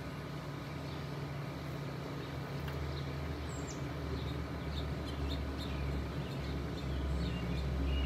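Distant low rumble of an Airbus A321-211's CFM56 jet engines passing high overhead, slowly swelling louder. Small birds chirp several times from about a third of the way in.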